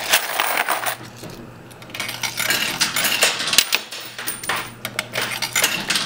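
Quarters clinking and dropping in a coin pusher arcade machine: a rapid, irregular clatter of metal coins.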